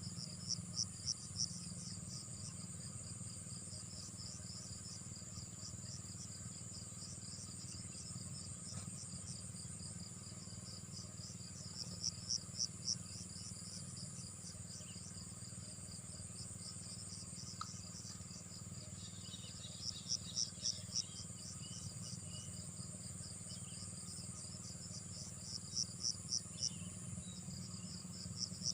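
Insects chirping in a steady high trill, with louder groups of four or five pulses every six to eight seconds, over a low steady hum.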